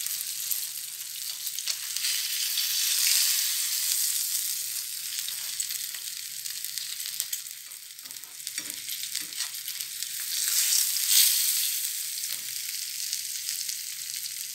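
Stuffed pomfret coated in rava and rice flour shallow-frying in oil in a pan, a steady sizzle that swells twice. A few light clicks of metal tongs against the pan come in the second half as the fish are turned over.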